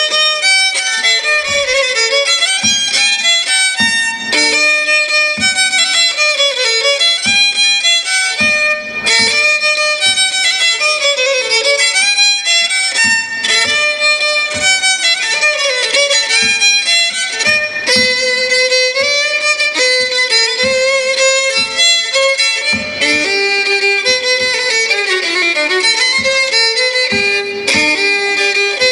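Solo folk fiddle playing a fast dance tune, with quick running notes that climb and fall.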